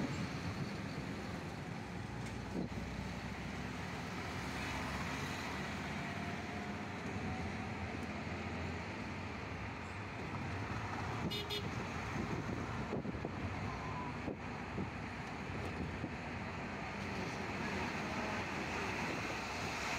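Steady road traffic noise on a busy highway, heard from a moving vehicle: a continuous rush of engines and tyres, with trucks passing close by.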